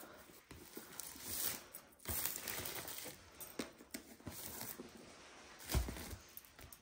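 Packaging being handled and unwrapped: crinkling of wrapping with scattered light clicks and knocks, and one louder thump about six seconds in.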